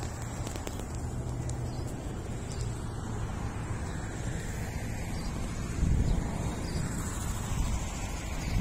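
Wind buffeting the microphone: a steady low rumble with stronger gusts about six seconds in and again near the end.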